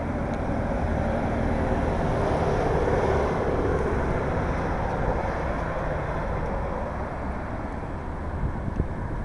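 Steady outdoor street noise: low rumble of traffic with wind on the microphone, swelling for a few seconds near the middle and easing again.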